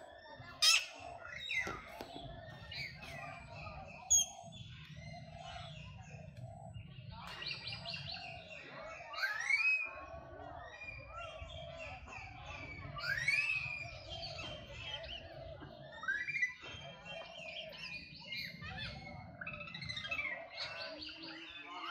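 High chirping and squealing animal calls, many gliding upward in pitch, repeated throughout over a low background rumble. There are two sharp clicks, one within the first second and one about four seconds in.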